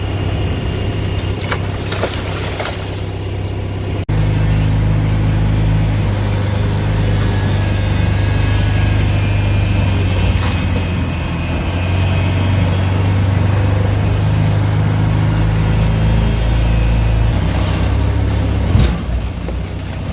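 A large engine running steadily with a deep hum; the sound changes abruptly about four seconds in, and there is a brief loud knock near the end.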